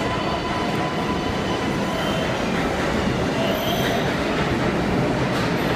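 New York City Subway R188 train pulling into the platform and slowing to a stop, steady running noise with faint wheel and brake squeals.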